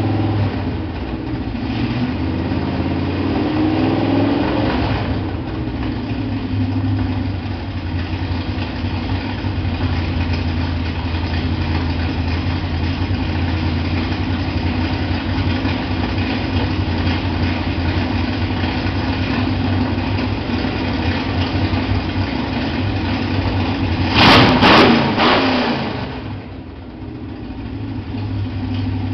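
Dodge V8 engine running at a steady idle, with a slow rise and fall in pitch in the first few seconds. About 24 seconds in comes one short, sharp blip of the throttle, and then the engine settles back to idle.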